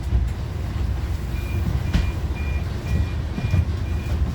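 Bus rear-door warning beeps: six short, high beeps about two a second, over the bus engine's steady low running, with a single knock about two seconds in.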